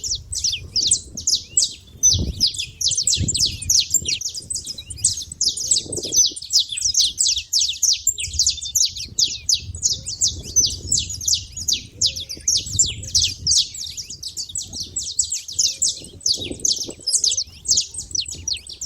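Saffron finches chirping nonstop, a dense stream of quick, high, down-slurred notes with no pause.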